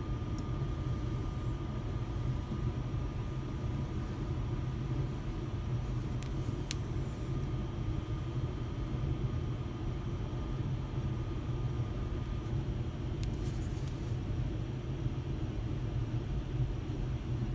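Steady low hum of background machinery, with a faint thin high whine that stops about two-thirds of the way through and a few light ticks.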